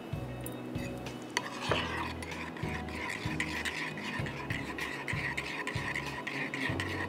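Metal spoon stirring a creamy mixture in a ceramic bowl, scraping and clinking against the sides with each stroke, about two strokes a second, starting about a second and a half in.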